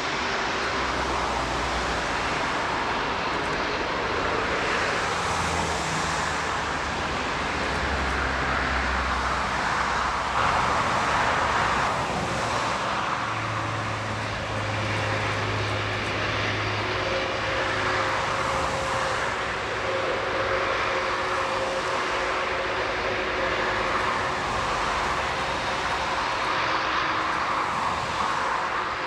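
Jet airliner engines running with a steady, unbroken rushing noise and a faint steady whine.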